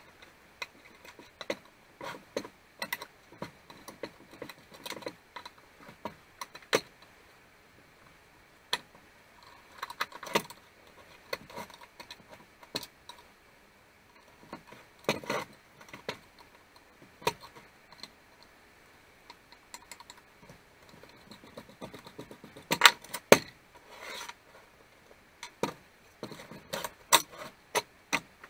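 Hand tools and small metal chainsaw parts clicking, clinking and knocking irregularly as the housing of a 1958 McCulloch Mac 35A chainsaw is taken apart, with two louder knocks in quick succession about three-quarters of the way through.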